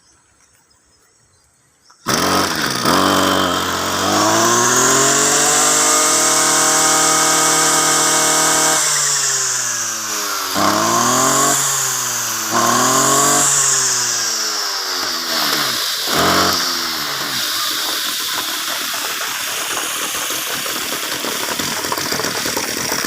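Two-stroke petrol brush cutter engine starting about two seconds in, then revved up and held at high speed for several seconds. It drops back, is revved up and down twice more and blipped once, then settles to a steady idle.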